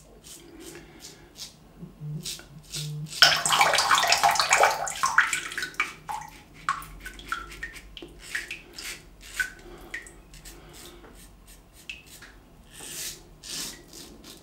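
Double-edge safety razor (Wilkinson Sword TTO with a Dorco Titan blade) scraping through lathered stubble in a run of short, crisp strokes. About three seconds in there is a louder rushing noise for a couple of seconds.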